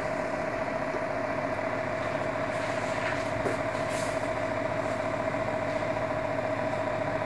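Steady mechanical hum with a held mid-pitched tone, unchanging throughout, with a few faint clicks a few seconds in.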